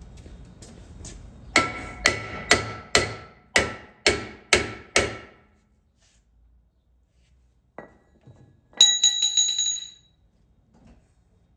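A hammer striking metal eight times, about two blows a second, each blow ringing briefly. A few seconds later there is a single click, then a higher metallic ring that lasts about a second.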